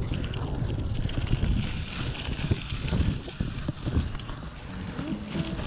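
Strong, gusting wind buffeting the microphone of a GoPro action camera on a moving mountain bike, an uneven low rumble that swells and eases.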